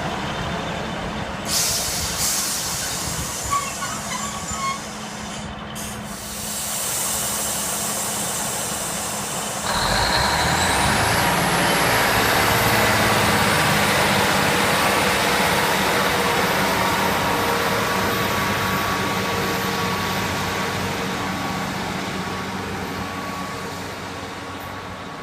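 A train passing through a station. A brief burst of hiss comes about two seconds in. Then, about ten seconds in, a loud rushing noise arrives suddenly with a whine that climbs steeply in pitch, and slowly fades away near the end.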